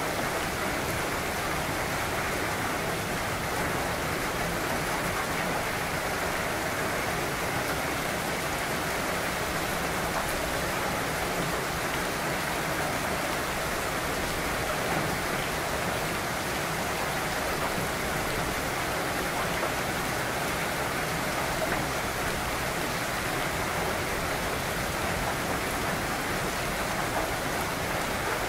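Steady rain falling on trees and grass, an even hiss with no breaks.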